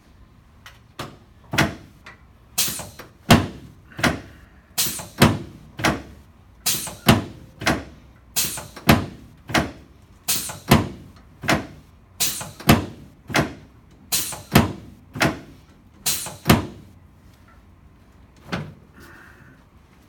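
Adjusting table knocking under rapid, rhythmic chiropractic hand thrusts on a patient's back. About two dozen sharp knocks come roughly three every two seconds, then stop, with one more after a pause.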